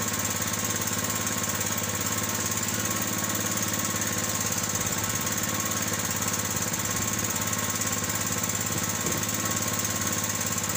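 Outrigger fishing boat's engine running steadily, a rapid, even chugging drone.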